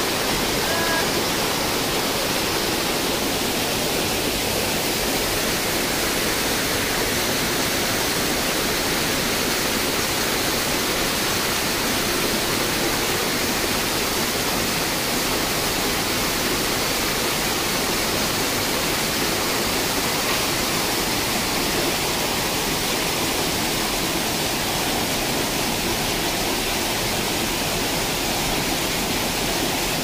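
Rushing water of a forest stream and waterfall, a steady unbroken sound.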